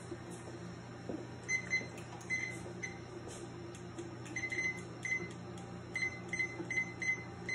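Handheld digital kitchen timer beeping as its buttons are pressed to set it: a dozen or so short, high beeps, a few spaced out at first, then a quicker run from about halfway through, over a steady low hum.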